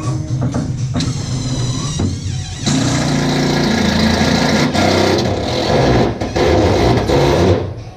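A motor-driven machine whines up in pitch, then runs loudly for about five seconds and stops.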